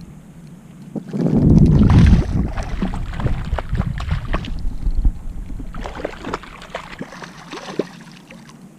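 A hooked jack crevalle thrashing and splashing at the surface beside a kayak. The run of irregular splashes starts suddenly about a second in, is loudest just after it begins, and eases off near the end.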